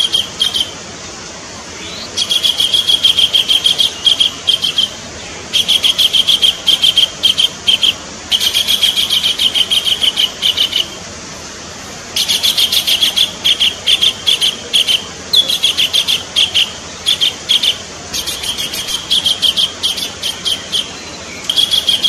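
Collared kingfisher calling: loud phrases of rapid, sharp repeated notes, each lasting two to three seconds, given again and again with short pauses between.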